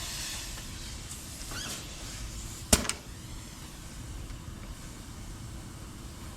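A sharp double click a little under three seconds in, over a low steady hiss.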